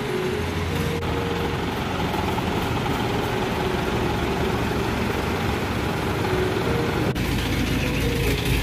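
Forklift engine running steadily while it carries aluminium ingots. After a cut about seven seconds in, a mobile crane's engine takes over, with a heavier low sound.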